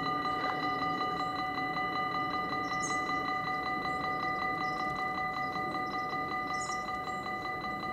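Level-crossing warning bell ringing steadily in rapid, even strokes, a metallic ringing tone repeated many times a second, signalling an approaching train as the barriers come down. Two short bird chirps sound over it.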